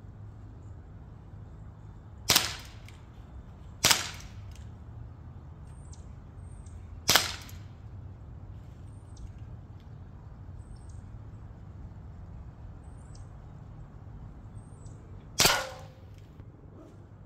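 Umarex Glock 17 Gen3 CO2 blowback BB pistol firing four single shots at an uneven pace: two close together, one a few seconds later, and a last one after a long pause. Each is a sharp pop, and the last has a short ringing tail.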